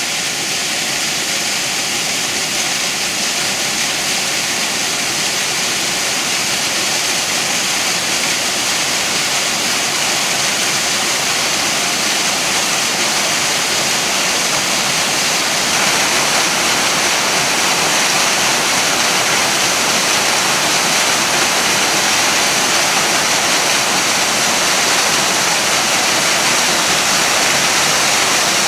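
Waterfall: a steady rush of falling water, hissy and continuous, growing slightly louder about halfway through.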